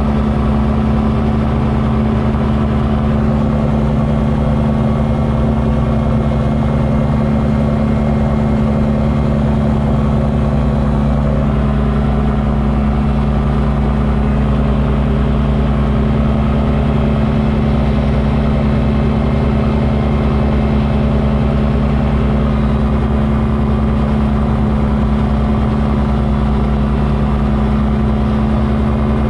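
Light aircraft's engine and propeller running steadily in cruise, heard from inside the cockpit: a constant, unchanging drone.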